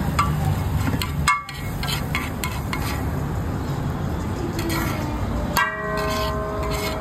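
A metal spatula or ladle clinking and scraping against a cooking pan at a street-food stall, with repeated sharp clinks. About five and a half seconds in comes one louder ringing clang that hangs for about a second. A steady low hum of street background runs underneath.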